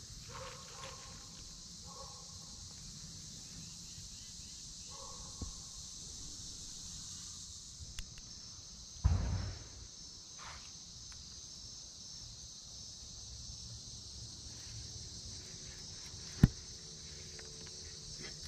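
Steady high-pitched chorus of insects chirring, with a dull thump about halfway through and a single sharp click near the end.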